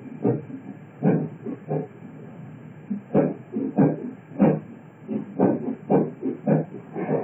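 Wheels of a moving express passenger train clattering over the track, heard from inside the coach vestibule. About a dozen irregular heavy knocks, sometimes several a second, rise over a steady running rumble.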